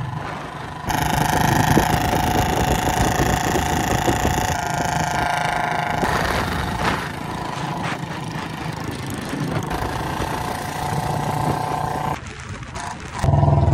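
Royal Enfield Bullet single-cylinder motorcycles running at road speed, engine noise mixed with wind rushing over the microphone.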